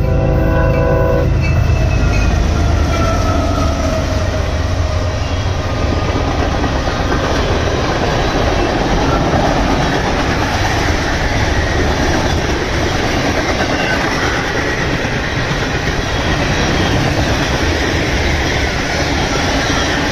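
Freight train horn chord cutting off about a second in. The diesel locomotives and a string of tank cars then pass close by with a steady low rumble and wheel noise on the rails, with faint thin squeals from the wheels.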